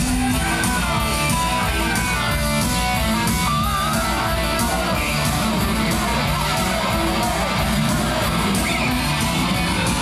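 Guitar-driven idol pop-rock song with strummed electric guitar and a singing voice, played loud and steady.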